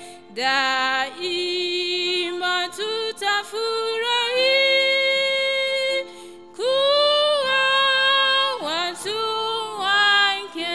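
A woman's voice singing a hymn into a microphone in long, held notes, phrase by phrase, with a short break a little past halfway.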